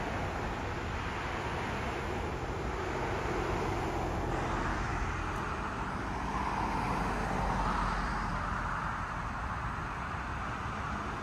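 Steady road-traffic noise, with a vehicle passing that swells in the second half and then fades.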